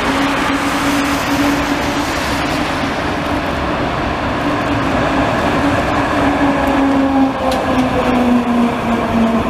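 Historic FVV prototype articulated tram running past with a steady motor hum that drops slightly in pitch as it goes by, over the hiss of car tyres on a wet road.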